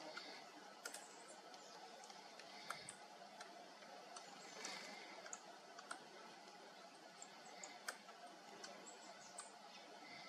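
Faint, irregular sharp clicks from a red squirrel gnawing and cracking a nut at a feeder, about eight in all, over a low steady hiss.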